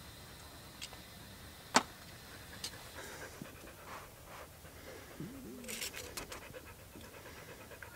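Soft utensil clicks and scrapes as chimichurri is spooned from a glass jar onto a grilled chorizo in a bread roll, with one sharp clack about two seconds in. A dog pants, and a short wavering whine comes past the middle.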